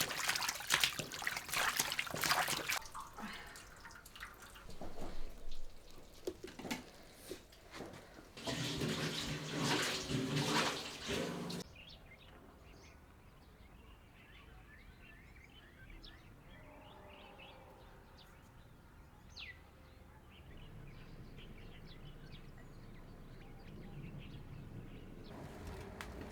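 Water running and splashing in two spells, the second one cutting off sharply about 11 s in, typical of a tap or pouring water into a basin. Afterwards faint birds chirp.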